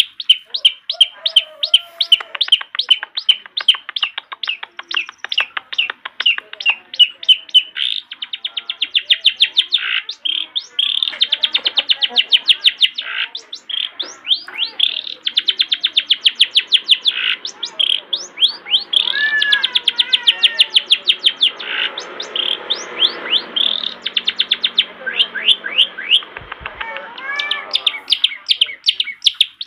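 Long-tailed shrike (cendet) singing nonstop: a fast, continuous run of sharp, chattering notes that now and then packs into quicker rattles.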